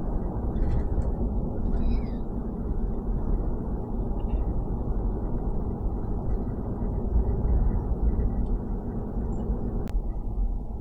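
Steady low road and engine rumble inside a moving truck's cab.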